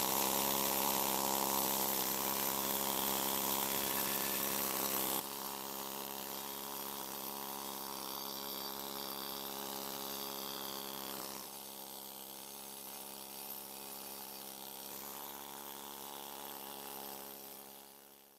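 Pneumatic needle scaler buzzing steadily against cast-iron power hammer parts, knocking off rust and old paint. The buzz drops in level twice and fades out near the end.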